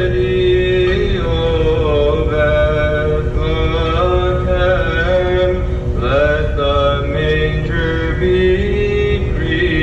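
Slow male vocal chant: long held notes, several pitches sounding together, sliding from one note to the next.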